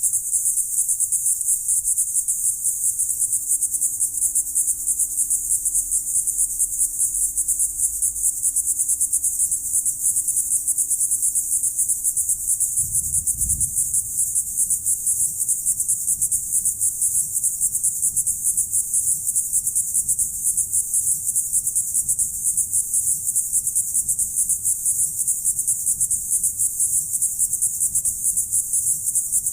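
Crickets trilling in a dense, steady high-pitched chorus with a fast pulse.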